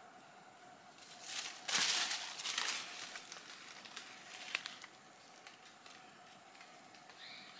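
Dry leaf litter rustling and crunching, loudest in a burst a second or two in, then fainter rustles and one sharp click near the middle, over a faint steady high tone.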